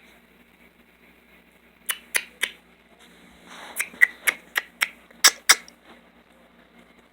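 A series of about a dozen sharp clicks and taps, irregularly spaced, over a low steady hum.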